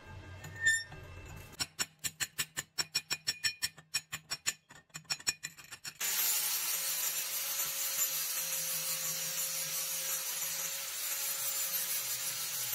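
About a second and a half in, a quick run of sharp knocks, about seven a second, lasting some four seconds. Then, about six seconds in, a Makita angle grinder with a flap disc starts up and runs steadily, grinding down the stick-weld bead on a thin steel pipe.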